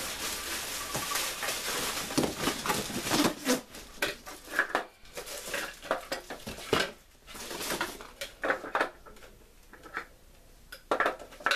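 Hard plastic blender and food-processor parts being unpacked: a steady rustling for the first few seconds, then a run of light clattering knocks as the pieces are handled and set down.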